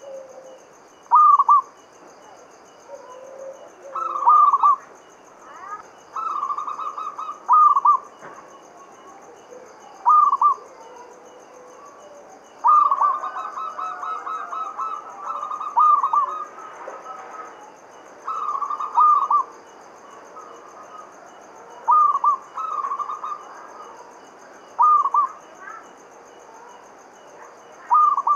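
Zebra dove (perkutut) cooing: repeated phrases of rapid rolling coos, each ending on a louder note, coming every two to three seconds.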